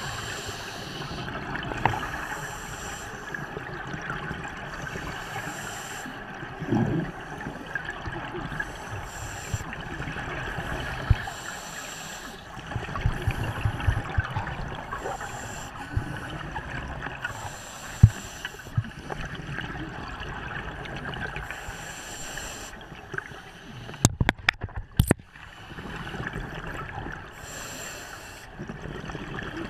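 Scuba regulator breathing heard underwater through a camera housing: exhaled bubbles hiss out in bursts every two to three seconds over a steady muffled water hiss. A quick cluster of sharp clicks sounds near the end.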